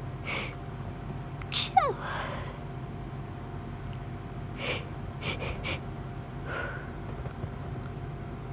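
A woman's stifled sneezes in a sneezing fit: short held-in bursts and gasping breaths. The loudest comes about a second and a half in, with a falling squeak, and three quick ones follow in a row about five seconds in.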